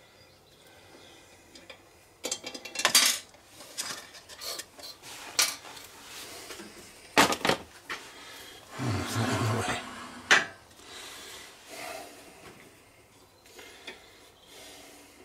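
Loose metal parts and spacers clinking and clattering against a tractor steering box housing as they are handled and fitted onto the shaft: scattered sharp clanks, with a longer metal scrape about nine seconds in.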